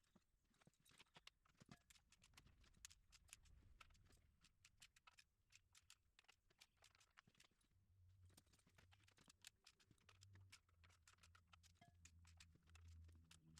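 Near silence with many faint, irregular clicks and taps, and a low hum coming in during the second half.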